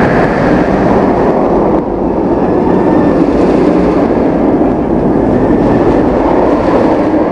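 Serengeti Express park train running, a loud, steady rumble and rattle of the cars on the rails heard from aboard.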